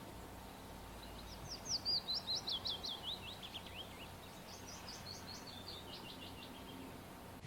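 A songbird singing two fast trills of short, high notes, each note sweeping downward, the first trill louder and the second fainter, over a faint steady hiss.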